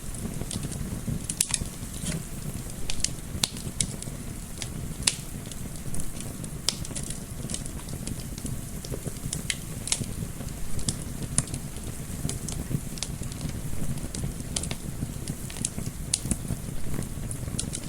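Wood fire crackling, with sharp irregular pops over a steady low rumble of flame, mixed with a soft whoosh of wind.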